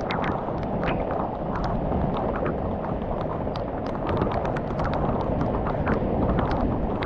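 Heavy thunderstorm rain pouring steadily, with many short sharp ticks of drops striking close by.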